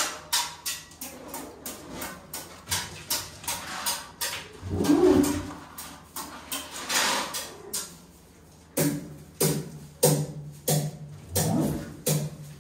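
Freely improvised percussive playing: a fast, irregular run of sharp wooden knocks and taps. From about nine seconds in, each knock carries a short low pitched note.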